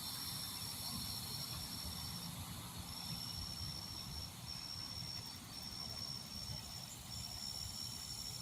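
Night chorus from a pond: a high, steady insect trill, briefly broken every second or so, over a low rumble.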